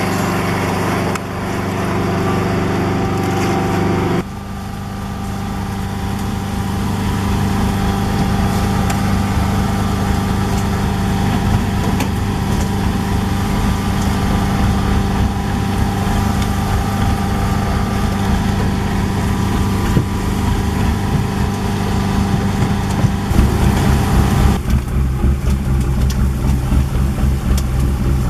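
A fishing boat's engine running steadily, its drone changing abruptly a few times. Near the end it grows louder and pulses, with water rushing and splashing over it as spray jets throw water beside the hull.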